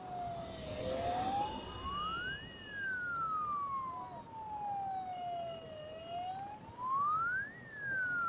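A wailing siren whose pitch climbs quickly and then slides slowly back down, about five seconds to each cycle. It peaks twice: about two and a half seconds in and again near the end.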